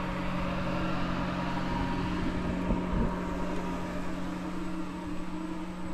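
A steady mechanical hum from a running motor, with a constant low drone and a rushing noise over it.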